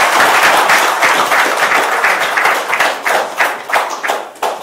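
Audience applauding: dense clapping that thins out to a few separate claps and fades away near the end.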